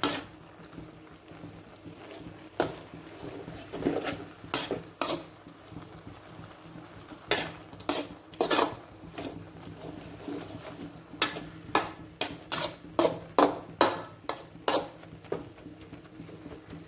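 A utensil knocking and scraping against a cooking pan as leafy greens are stirred and turned over, in irregular clinks with a quicker run of taps a little past the middle.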